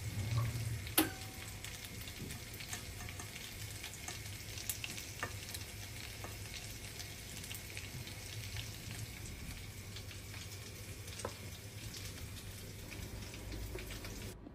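Food sizzling and crackling in oil in a frying pan, with a sharp click about a second in and a few lighter knocks. The sound cuts off abruptly near the end.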